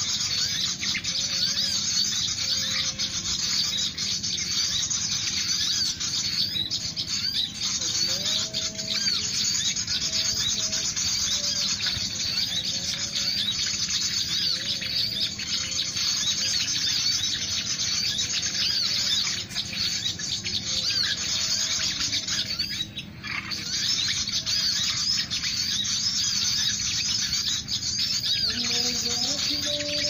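Many small birds chirping and twittering without pause, a dense high-pitched chorus. Faint drawn-out lower tones waver underneath, and one rises in pitch near the end.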